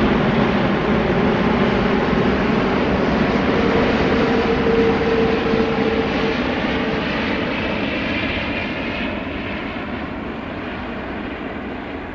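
Boeing 787 jet airliner on final approach with its gear down, passing low overhead: a loud, steady rush of jet engine noise with a hum rising out of it midway, then fading over the last few seconds as the aircraft draws away.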